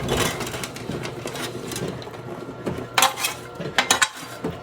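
A utensil scraping and clinking against a pan as freshly dumped caramel popcorn is stirred, with a few sharp clinks about three to four seconds in.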